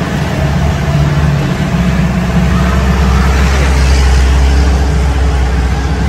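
Jeep engine running as the jeep drives along an off-road track, a deep steady drone with rough road noise over it, growing louder about two seconds in.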